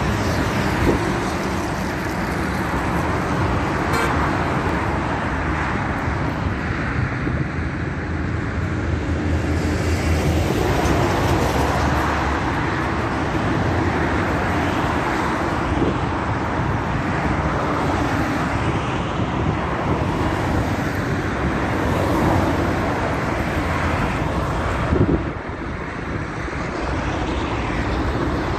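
Steady road traffic noise from cars passing on a bridge roadway: a continuous low rumble and tyre hiss that dips a little near the end.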